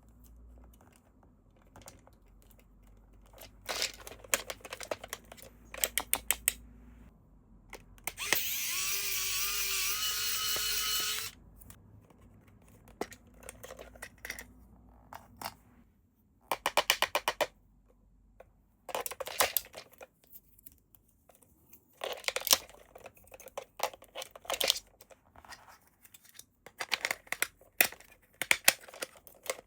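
Toy packaging being handled during an unboxing: several short bursts of rapid clicking and rattling. About eight seconds in comes one steady, squealing rasp lasting about three seconds, its pitch wavering and rising slightly.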